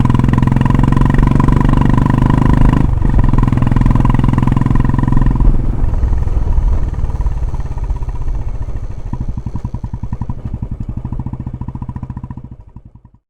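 Royal Enfield Classic 350's single-cylinder engine running through a K-Indori aftermarket silencer, in its stock form without the rear mud-flap add-on. The exhaust runs loud and steady for the first half with a brief dip about three seconds in. It then fades, the separate exhaust beats becoming distinct as it dies away near the end.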